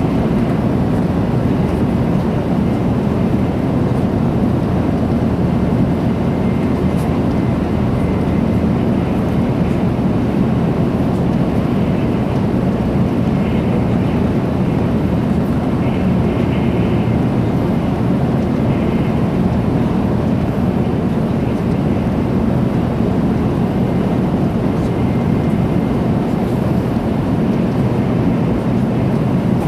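Steady running rumble of a 300 series Shinkansen at high speed, heard inside the passenger cabin: wheels on rail and air rushing past the car body, deep and unchanging.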